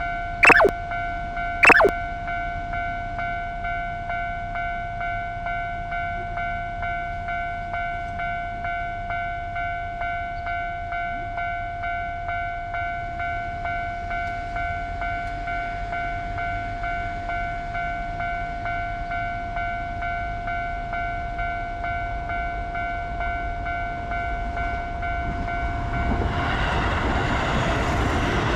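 Japanese level-crossing alarm ringing its steady, pulsing 'kan-kan' tone, with two short rising whistle-like swoops near the start. Near the end the noise of a passing train rises over it.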